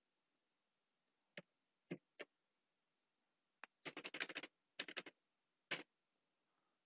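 Computer keyboard keys being pressed: a few single taps, then a quick run of keystrokes about four seconds in and one last tap near the end.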